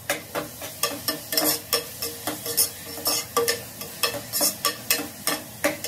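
A ladle stirring and scraping chopped onions frying in hot oil in a pressure cooker, about four quick scrapes a second over a light sizzle.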